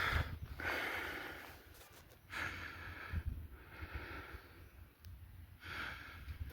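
A person breathing close to the microphone, about four slow breaths with soft gaps between them.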